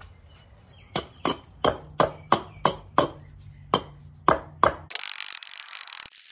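A hatchet chopping into an Osage orange log, chipping off the bark: about ten sharp strikes, roughly three a second. About five seconds in, the sound changes suddenly to a dense, high-pitched rattling hiss.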